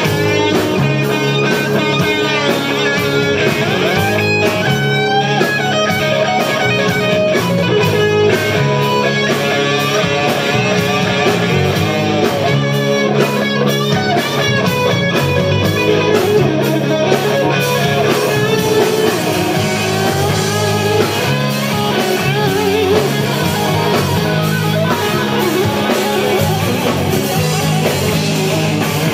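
Live hard rock band: distorted electric guitar playing a lead line with bent, sliding notes over bass guitar and drums, played through Marshall amplifiers.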